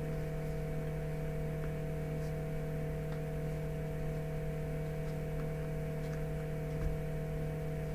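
Steady electrical hum with several fixed tones over a low rumble, and a few faint ticks.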